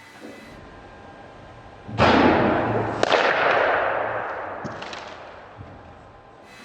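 A wood-composite baseball bat (a thin maple shell over carbon fiber and a polyurethane core) shattering on contact with a pitched ball: a sudden loud crack about two seconds in, another sharp knock a second later, then a noisy rattle that fades over several seconds as the pieces fly off.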